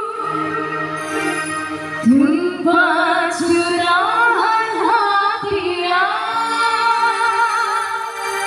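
A singer performing a dangdut melody, entering with a rising swoop about two seconds in, then holding notes with wide vibrato and quick ornamental turns, over a soft sustained accompaniment.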